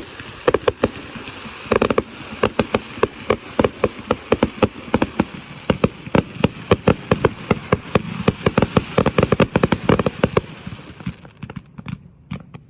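Fireworks going off in rapid succession, a dense string of sharp bangs and crackles several per second, thinning to fewer, quieter pops near the end.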